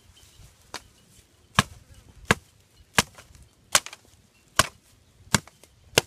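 Knife blade chopping a thin wooden stick against the ground: about eight sharp strikes, roughly one every three-quarters of a second, the first one faint.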